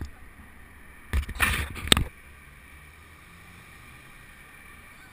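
Bicycle rolling over pavement, its noise carried through a handlebar-mounted camera: a loud clattering rattle lasting about a second, starting about a second in and ending in a sharp knock, as the bike jolts over a bump, then a steady low rolling hum of the tyres.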